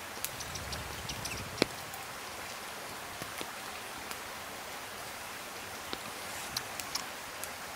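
Wood campfire burning: a steady hiss with scattered sharp crackles and pops, one louder pop about a second and a half in.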